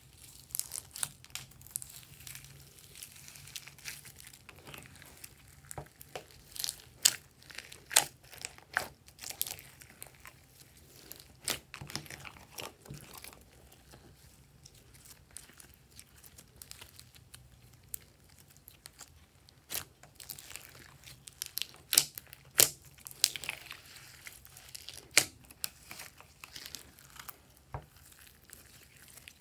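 Glossy clear slime full of foam beads, sequins and glitter being squished, stretched and folded by hand, giving irregular sticky crackles and sharp pops.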